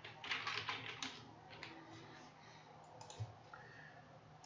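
Computer keyboard typed in a quick run of soft key clicks during the first second, then a few single clicks about one and a half and three seconds in.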